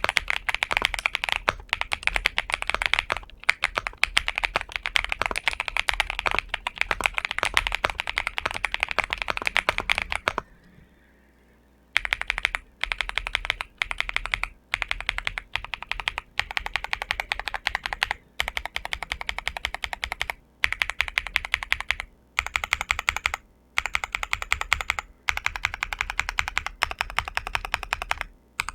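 Typing on an Xinmeng M75 Pro mechanical keyboard with Dark Plum switches: fast, continuous keystroke clacks in runs, with a pause of a second or two about a third of the way in and several brief breaks later.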